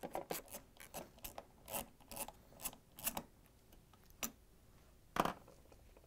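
Faint scattered clicks and rubbing of metal as a loosened bolt is unscrewed by gloved fingers from a refrigerator's steel upper door hinge. A sharper click comes about five seconds in.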